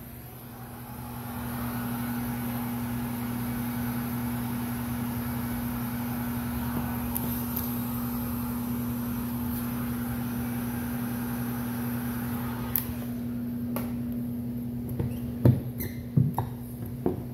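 Heat gun blowing hot air steadily over a steady low hum while shrinking window tint film onto a car's rear glass, cut off with a click about 13 seconds in. A few sharp knocks and taps follow near the end.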